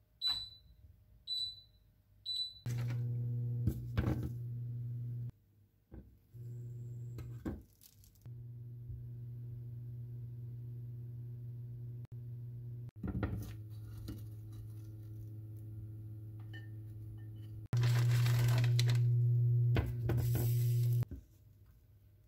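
Three short beeps from a glass-top induction cooktop's touch controls, then the hob's steady electrical hum as it heats a pan of toasting bread. The hum steps up and down in loudness several times and is loudest for a few seconds near the end, with a hiss over it, and a few short knocks of the pan being handled.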